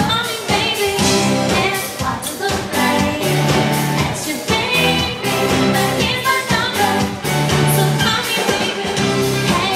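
Amplified pop song: a woman singing over a steady beat and bass line.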